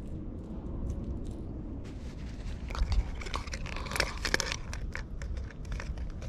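Close handling noise from hands working a small goby and a wooden fish-measuring box: clicks and crackles start about two seconds in and are densest between about three and four and a half seconds. A steady low rumble runs underneath.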